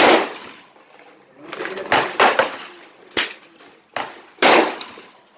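Gunfire at a rifle range. A loud shot comes right at the start and another about four and a half seconds in, each with a ringing tail, and several sharper, shorter cracks fall between them.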